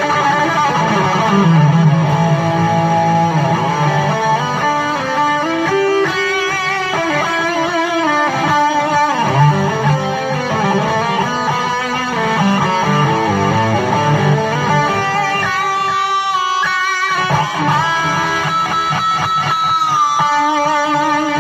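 Electric guitar played through an amplifier on a lead solo tone: a melodic solo line of single notes, several held and wavering with vibrato.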